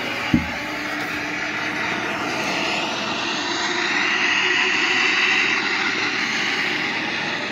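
Subway train running: a steady rumble of wheels on rail that grows louder about four seconds in, as the train pulls away. A short thump just after the start.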